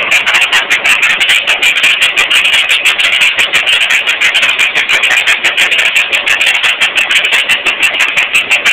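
Excavator-mounted hydraulic breakers hammering on rock: a loud, steady chatter of rapid, even blows.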